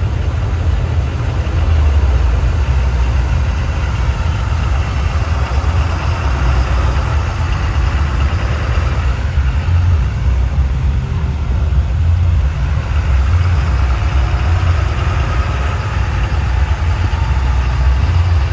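Large diesel truck engine running steadily at low revs, a deep steady rumble with no change in pitch.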